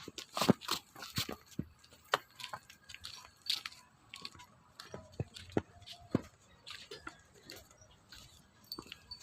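Desi cow eating fodder: irregular crunching and tearing bites, coming thick in the first second or two and then more spaced out.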